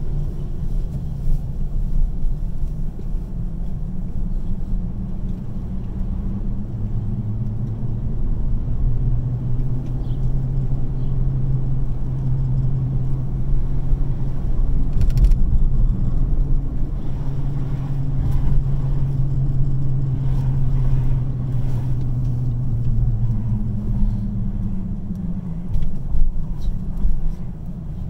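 Car driving slowly through city streets, heard from inside: a steady low rumble of engine and tyres with a deeper engine hum that swells and fades as the car moves off and slows. There is one sharp knock about halfway through.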